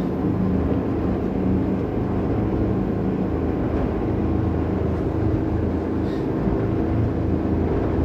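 Twin Volvo Penta IPS500 diesel engines running steadily at high speed, heard as a constant low drone from the helm, with wind and water noise over it.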